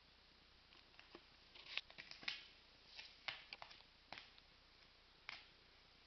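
Faint, irregular scratches and rustles of a kitten's claws catching on fabric, a dozen or so short ones bunched in the middle and one more near the end.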